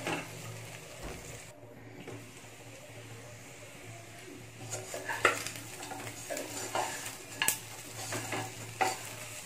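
Spoon stirring and scraping chicken pieces in a nonstick kadai while the meat sizzles, dry-roasting in its spice coating. The sharp scrapes and knocks against the pan come mostly in the second half, over a low steady hum.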